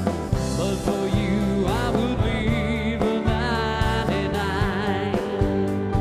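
Background song with a singing voice over guitar and a steady beat, in a country or Christian pop style.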